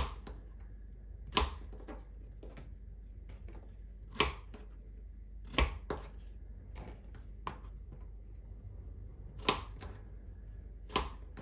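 Kitchen knife chopping courgette into small chunks on a wooden cutting board: irregular knocks of the blade striking the board. A few louder strokes come a second or more apart, with fainter cuts between them.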